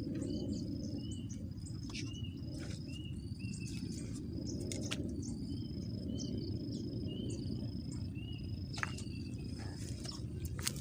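Outdoor ambience: many short, high chirps repeating over a steady low rumble, with a few sharp clicks.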